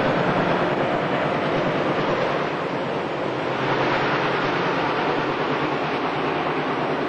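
Passenger train rolling steadily across a steel girder bridge: a continuous running noise of wheels on rail, with no distinct beat.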